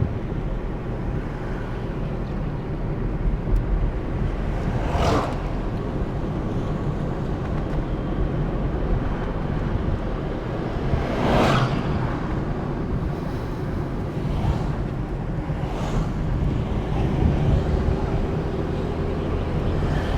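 A car driving on the road: steady engine and road noise, with three brief louder swells about five, eleven and sixteen seconds in.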